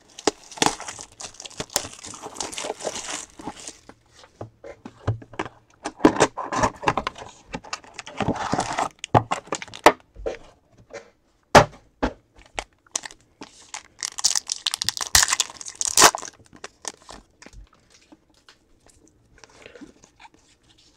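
Unboxing a Panini Certified football card box: cardboard and wrapping are handled and foil card packs are torn open, with three spells of crinkling and tearing and scattered knocks of the box and packs against the desk.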